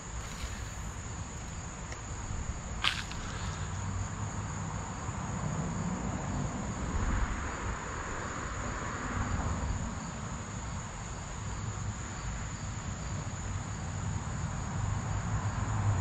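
Insects calling in one steady high-pitched drone over a low background rumble. A single sharp click comes about three seconds in, and a soft rush of noise swells and fades a little past the middle.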